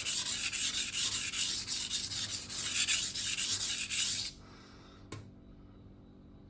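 Steel knife edge scraping back and forth across a coarse 400-grit diamond whetstone in repeated rasping strokes, raising a burr along the edge. The strokes stop about four seconds in, and a single click follows.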